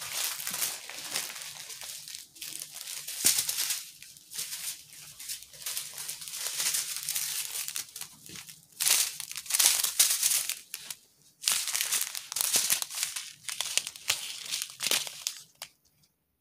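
Small plastic bags of diamond painting drills being handled, crinkling on and off, with the noise stopping shortly before the end.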